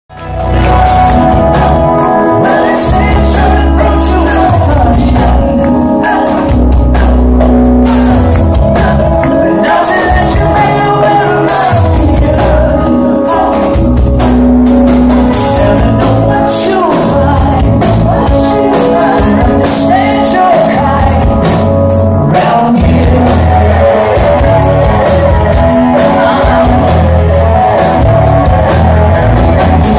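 Live rock band playing loud, with drums and a male lead singer, heard from the audience in a club.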